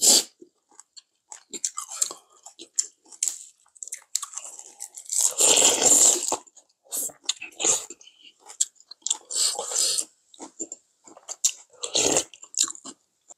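Close-miked eating: crunchy chewing and biting of lettuce wraps with bulgogi, with a few longer, louder slurps of soup from a spoon, the biggest a little before the middle and another near the end.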